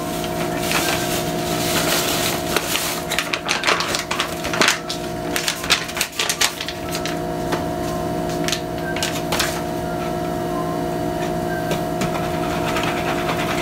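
Bag of yellow cake mix rustling and crinkling as the dry mix is shaken out into a mixing bowl, with a wire whisk clicking in the bowl near the end. Underneath is a steady background hum.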